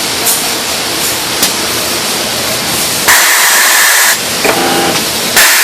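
Welding arc crackling and hissing steadily, with two louder, harsher stretches of hiss, one about three seconds in and one near the end.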